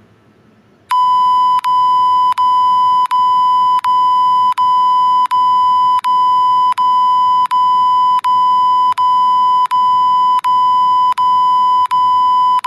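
Loud electronic bleep tone dubbed over the soundtrack, of the kind used to blank out audio. It starts about a second in as a string of long beeps at one steady pitch, each about three-quarters of a second long, with barely a break between them.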